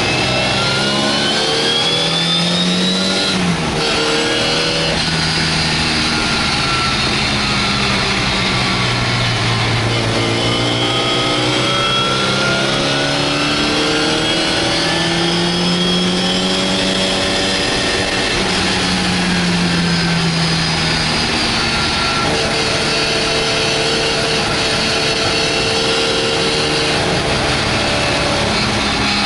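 MGA's four-cylinder engine racing under load, heard from inside the car: its pitch climbs as it revs out, drops suddenly at a gear change about three and a half seconds in, and rises and falls again several times as the car accelerates and slows through corners.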